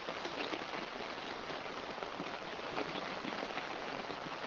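Heavy rain falling steadily, a dense patter of drops.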